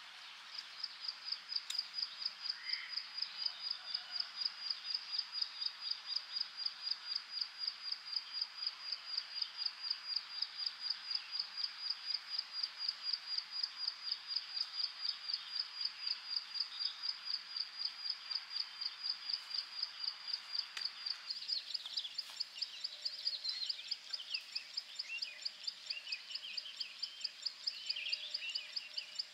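A small animal's high-pitched chirp, repeated evenly several times a second over a steady background hiss. A little over two-thirds of the way through, the hiss drops away and other, more varied chirps join in.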